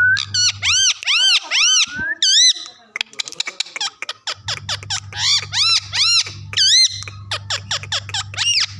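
Green ringneck (rose-ringed) parakeet giving rapid, shrill, arching calls in three bursts of several calls each.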